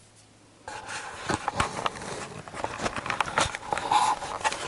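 Handling noise from a drone unboxing: a run of irregular small clicks, taps and rustles as the racing drone and its packaging are moved about, starting a little under a second in.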